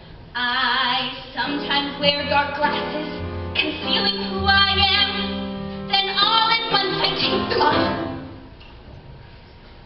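A woman singing a show tune with live instrumental accompaniment, holding long notes with vibrato. Near the end the voice drops out and only softer accompaniment is left.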